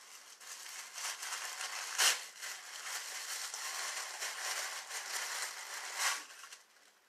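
Paper and packaging wrapping crinkling and rustling as a pack of coconut bowls is unwrapped by hand, with two sharper, louder crackles about two seconds in and near the end.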